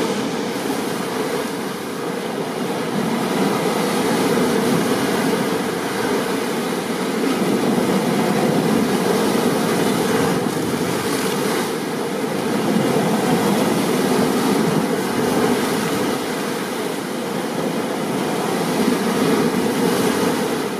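Steady rushing water noise of heavy rain and ocean surf, swelling and easing gently every few seconds.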